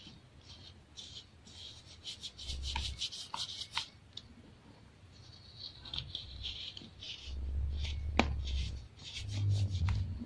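Fingers rubbing and crumbling chunks of dried baking soda, making a gritty crunch and crackle of fine grains, with a few sharp snaps as pieces break, one loud snap about eight seconds in. Low dull bumps come from hands pressing into the powder pile.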